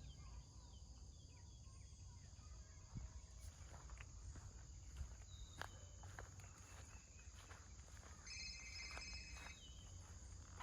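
Near silence of open country: faint scattered rustles and ticks, with a faint insect buzz for about a second and a half near the end.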